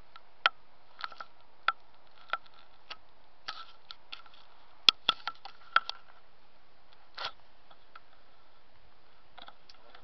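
Scattered sharp clicks and ticks, about fifteen, irregularly spaced over a steady low hiss, the loudest about halfway through, with a short rustle a couple of seconds later.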